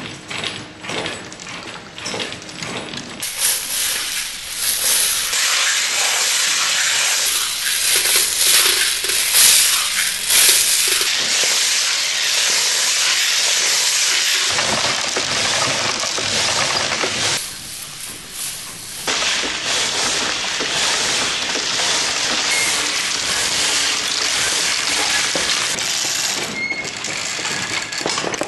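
Wooden kinetic sculpture running its loop: steel balls click against the stepped wooden blocks of a ball lifter, then about three seconds in a loud, steady hissing rush takes over, dropping away briefly about two-thirds through.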